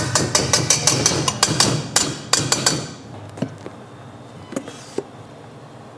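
Rapid clattering knocks of a kitchen utensil against a mixing bowl, about five or six a second for roughly three seconds, then a few scattered softer knocks.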